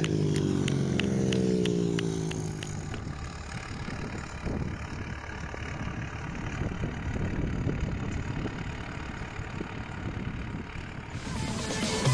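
Long-track racing motorcycles' 500 cc single-cylinder engines running at speed, their note falling in pitch over the first two seconds as they pull away, followed by an uneven low rumble.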